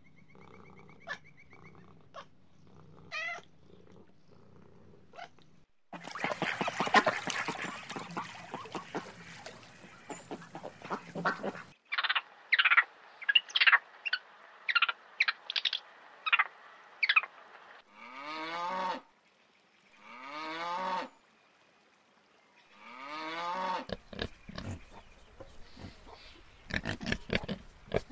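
A string of different animal calls, edited one after another with abrupt cuts: a noisy, crackly stretch, a run of short falling chirps, then a few long calls that rise and fall in pitch.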